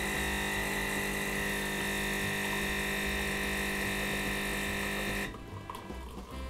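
Automatic espresso machine's pump buzzing steadily while a shot of coffee pours from the spouts, then cutting off suddenly about five seconds in.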